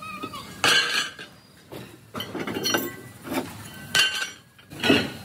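Cut steel truck-rim discs clanging against heavy steel plate: several loud metallic clanks, each ringing briefly, about a second apart.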